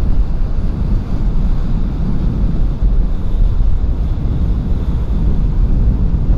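Wind buffeting the microphone, a steady low rumble over the wash of sea water.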